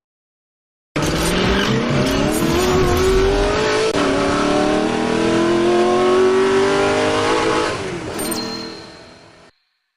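A car engine accelerating hard through the gears. Its pitch climbs, drops sharply at a gear change about three seconds in, then climbs again before fading out. It starts and cuts off abruptly, like an edited sound clip.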